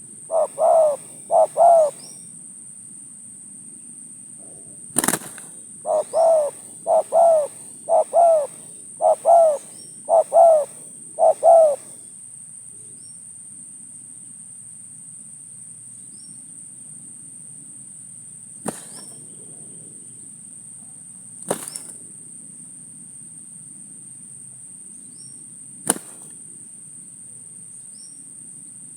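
Spotted doves cooing: three quick coos near the start, then a run of seven evenly spaced coos from about six seconds in. A steady high-pitched hum runs underneath, and four sharp clicks stand out, the loudest about five seconds in.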